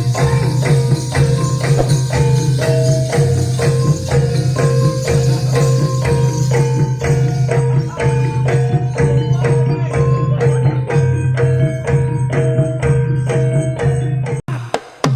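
Javanese gamelan music for a jaranan dance: pitched metal percussion struck in a steady, even beat of about three notes a second over a steady low drone. The music breaks off abruptly near the end.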